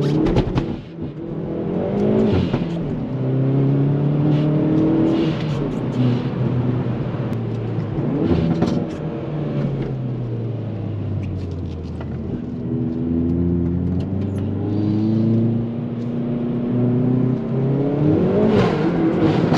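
Hyundai i30 N's 2.0-litre turbocharged four-cylinder, heard inside the cabin, pulling through the gears: the engine pitch climbs in several runs and drops back at each shift, with a long easing-off fall in the middle. Short sharp cracks come at several of the shifts, the strongest near the end.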